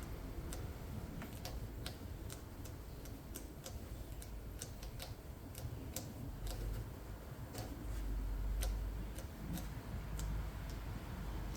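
A string of light, sharp clicks at irregular intervals, about two a second, over a low rumble that swells about two-thirds of the way through.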